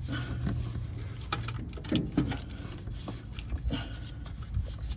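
Light, irregular clicks and knocks from hand tools, with a low steady hum for about the first second and a half.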